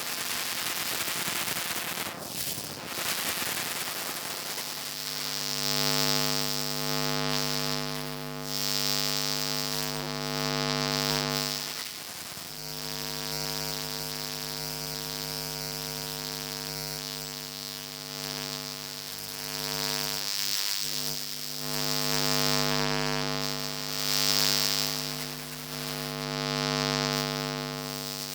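Electromagnetic interference from an electrical device, picked up by a homemade electromagnetic pickup coil: a steady electrical buzzing hum over hiss. The hum fades in about five seconds in and drops out briefly twice, about halfway through and again some eight seconds later, while the hiss above it keeps swelling and fading.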